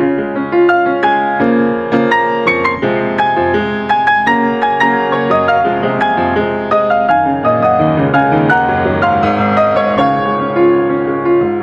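Solo grand piano playing a melody over chords, with several notes struck each second.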